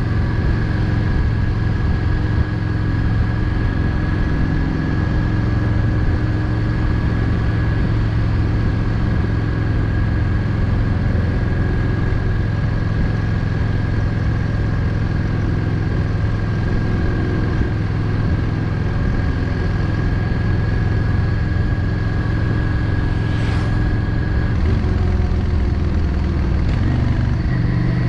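Yamaha XVS 650 Drag Star's air-cooled V-twin running steadily under way. Near the end the engine note rises as it revs up.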